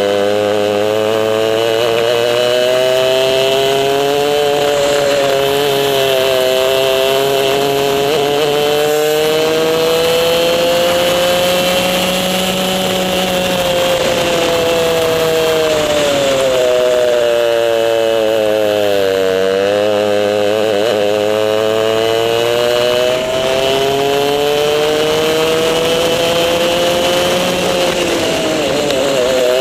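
Racing kart's two-stroke engine heard from the driver's seat, revving up along the straights and dropping in pitch for the corners. There is a long deep dip in revs about two-thirds of the way through and another drop near the end.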